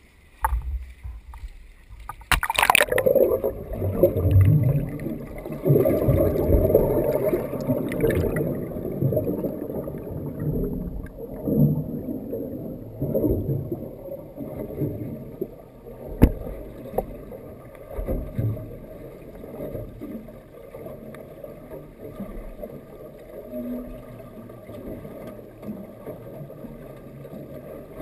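Splash as the microphone plunges under the sea surface about two seconds in, then the muffled underwater churn of moving water and bubbles, dull and without treble, gradually settling. One sharp knock a little past the middle.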